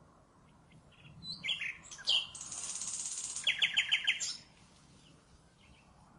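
Common nightingale singing one song phrase: a few soft opening notes, a high rattling trill, then a quick run of about six loud repeated notes. The phrase stops a little past the middle.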